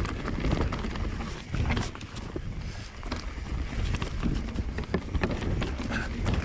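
Mountain bike riding down a rough, rooty singletrack trail: the frame and parts rattle and knock many times as the wheels hit roots and rocks, over a steady low rumble of tyres on the ground.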